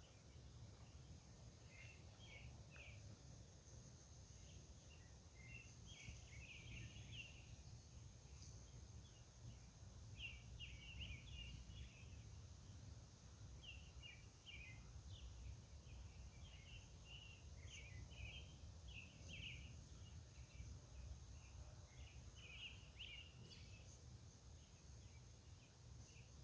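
Faint outdoor night ambience: bird chirps in short clusters every second or two, over a steady thin high tone and a low distant rumble.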